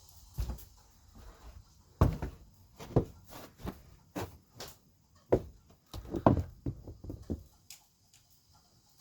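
A series of irregular knocks and thumps, about a dozen over several seconds, loudest around two seconds and six seconds in.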